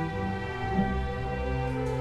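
String orchestra playing live: violins, violas and double bass bowing sustained notes, with the bass line moving to a new note about a second in.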